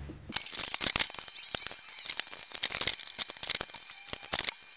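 Handling noise: a dense run of rapid clicks, rustles and light knocks, as of plastic parts and the camera being moved about. It starts about a third of a second in.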